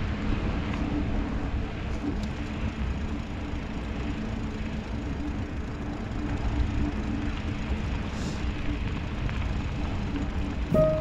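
Steady ride noise from a bicycle on a snowy road: a low rumble of wind on the microphone and tyres rolling, with a faint hum.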